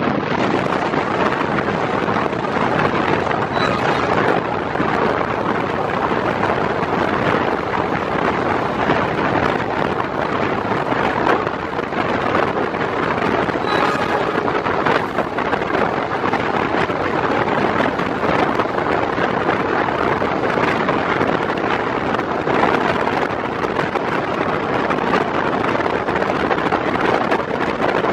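Passenger train running at speed: steady rumble and rushing noise with wind buffeting the microphone.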